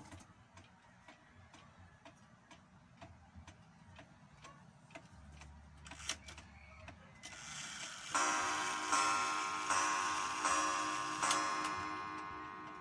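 Aichi 8-day spring-driven pendulum wall clock ticking while its minute hand is turned by hand up to the hour. Then it strikes the hour five times, about a second apart for five o'clock, each stroke ringing and fading.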